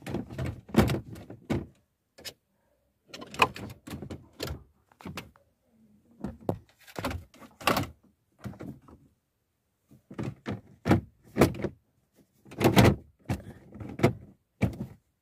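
Plastic dashboard trim, the instrument-cluster hood of a Toyota Vios, being handled and pressed back into its clips: clusters of short knocks and clicks with brief pauses between them.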